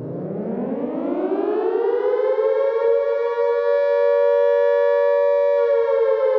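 Civil defense siren winding up: its pitch rises over the first two seconds or so, then holds as one steady, loud wail.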